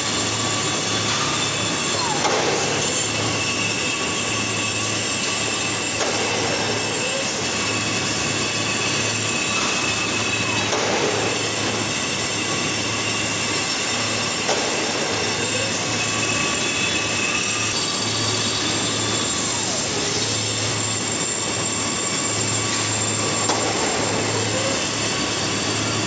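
Rebar cooling bed and roller table of a hot rolling mill running: a steady mechanical din with a low hum that comes and goes every second or two, steady high metallic whines and occasional squeals of steel on steel.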